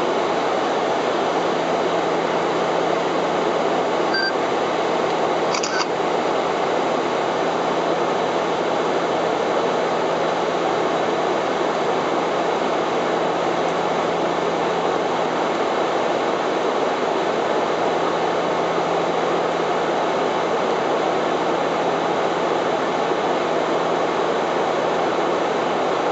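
Steady cockpit noise of a Bombardier Dash 8-400 turboprop airliner in flight: engine, propeller and airflow noise as an even rush with a constant low hum underneath. Two faint short blips come about four and six seconds in.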